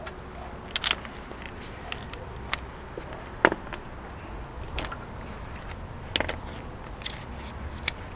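Hand tools and sockets being handled, giving scattered light metallic clinks and taps, about one a second, over a low steady background rumble.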